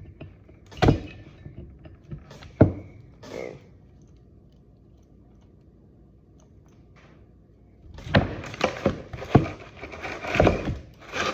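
Metal tools and parts knocking and clicking while a steering knuckle's grease fittings are fitted and greased. There are two sharp knocks about two seconds apart, then a quiet spell, then a quick run of clicks and knocks near the end.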